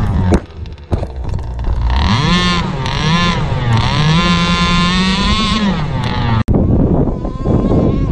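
Supercharged two-stroke engine of an RC buggy: a sharp knock just after the start as the car tumbles in the sand, then the engine revving up and down and holding a steady high buzz. The sound cuts out for an instant about six and a half seconds in, then the engine runs on over wind noise.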